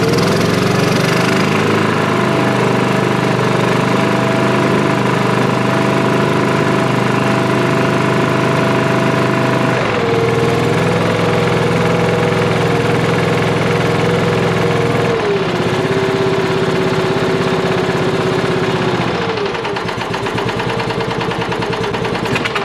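John Deere 325 lawn tractor's V-twin engine running steadily just after a first start, fed from a gas can through a hose; its speed steps down twice, about halfway through and again a few seconds later. It runs well, in the owner's words sounding really, really good.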